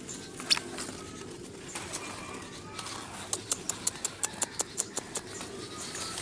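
Birds calling around a nest, with a rapid even run of short sharp notes, about five a second, through the second half.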